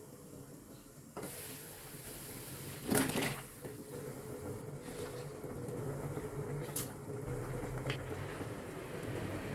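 A few knocks and clicks of kitchenware being handled, the loudest a clatter about three seconds in, over a low steady hum.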